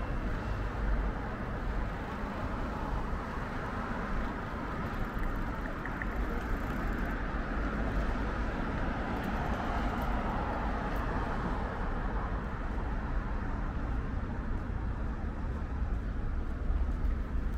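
Steady city street noise with passing cars, heard from a bicycle in motion, over a constant low rumble of wind on the microphone.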